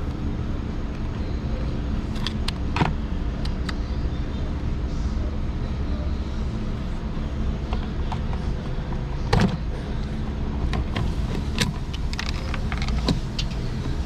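Scattered metallic clicks and knocks from a flathead screwdriver loosening the hose clamp on a throttle-body intake duct, and from the rubber duct being worked loose and pulled off, over a steady low background hum.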